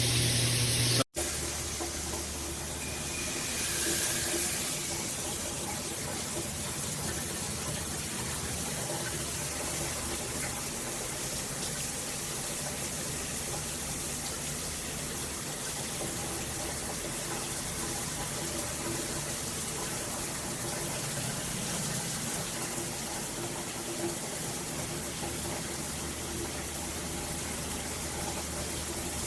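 Water spraying steadily from an LED handheld shower head running at high pressure, an even hiss that swells briefly about four seconds in.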